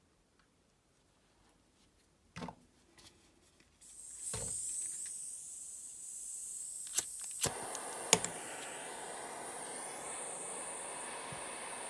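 Small handheld gas torch: gas starts hissing from the nozzle, then three sharp igniter clicks about a second apart, and the torch lights and burns with a steady rushing flame noise.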